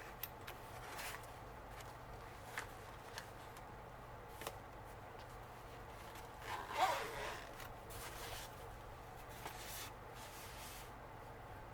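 Mechanical pencil sketching on paper: faint, scattered scratchy strokes with a few small clicks, the loudest stroke about seven seconds in.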